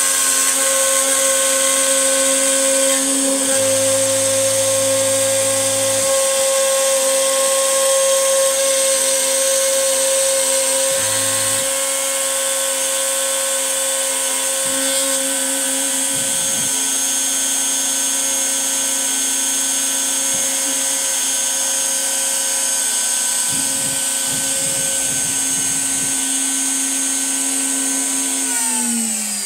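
X-Carve CNC router spindle whining steadily as its end mill cuts pockets in MDF. Near the end the spindle shuts off and the whine falls in pitch as it spins down.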